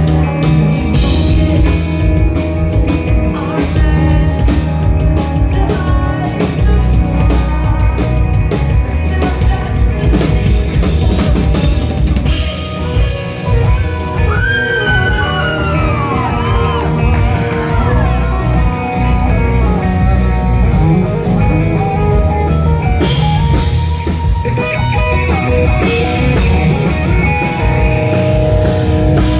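Rock band playing live, with a full drum kit and guitars. About halfway through, a high note slides and wavers up and down.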